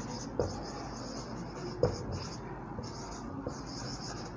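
Whiteboard marker writing on a whiteboard: a run of short, scratchy strokes with brief pauses between letters, and a few light taps as the tip touches the board.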